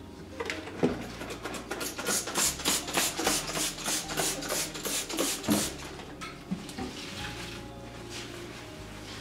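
Plastic squeeze bottle of Asperox liquid cleaner squirted onto a wet stone countertop in a quick run of hissing spurts, about four a second, which stop about six seconds in.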